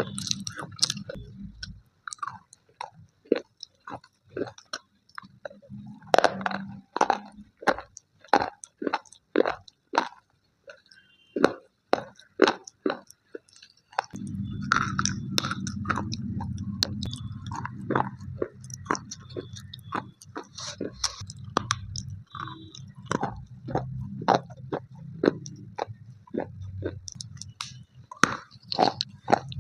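Slate pencils being bitten and chewed close to the microphone: sharp, dry crunches about one or two a second. A low steady hum joins in about halfway through.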